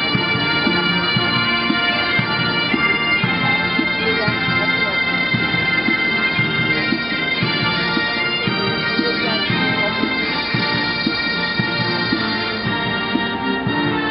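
Military pipe band bagpipes playing a march, their drones held steady under the chanter melody, with the band's brass instruments playing along.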